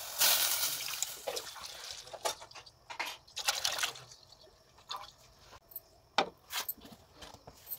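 Milk being poured in a stream into an aluminium pot, splashing and hissing. It is steadiest in the first two seconds, then comes in shorter gushes. A couple of sharp knocks come near the end.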